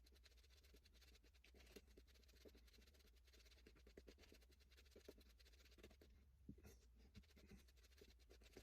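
Near silence: low steady room hum with a few faint scattered ticks.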